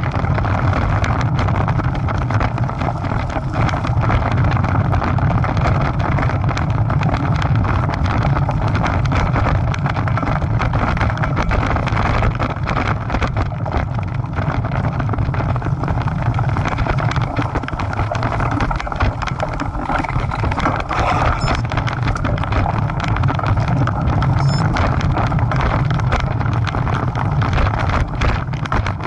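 Wind buffeting the microphone of a camera on a bicycle riding a rough dirt single-track trail, with a steady low rumble and constant small rattles and clicks from the bike jolting over the ground.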